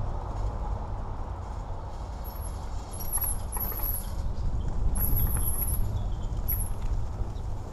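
Mountain bike riding a rough trail, heard through an action camera: a steady wind rumble on the microphone with scattered rattles and clicks from the bike. About two seconds in, a few short, high-pitched chirps come and go.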